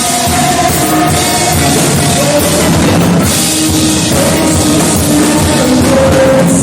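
Loud rock-style band music with a drum kit and held, sustained chords.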